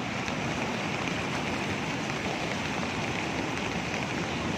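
Steady rain falling, with a fine patter of drops.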